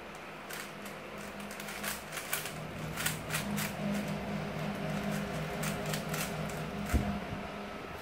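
Plastic 3x3 Rubik's cube being turned during a solve: an irregular run of quick clicks and clacks as the layers turn, over a steady low hum, with one thump about seven seconds in.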